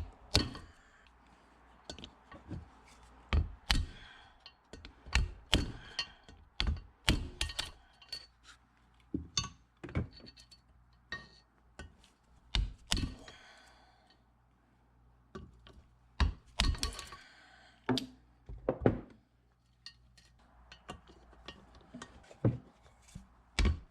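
Irregular metallic clinks and knocks of valve springs, retainers and keepers being removed from a Honda H22 cylinder head and set down, some with a short ring, with a couple of brief quieter pauses.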